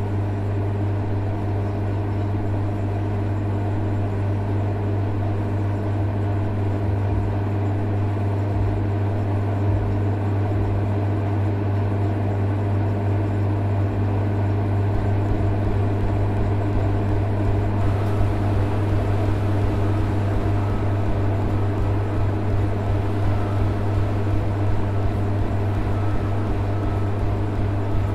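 Steady low electrical hum with a string of evenly spaced overtones, and a faint hiss joining it about two-thirds of the way in.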